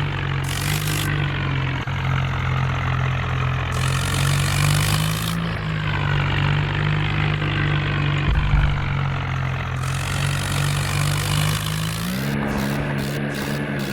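Swaraj 855 FE tractor's diesel engine running steadily under load, with a low thud about eight seconds in and the engine speed stepping up near the end.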